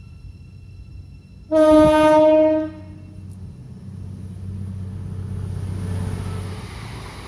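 Train horn sounding one loud blast of just over a second on a single steady note, followed by the low rumble of the train running past, building and then easing off.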